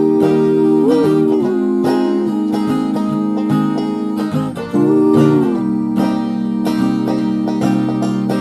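Background music with plucked strings and held notes that bend in pitch about a second in and again near the middle.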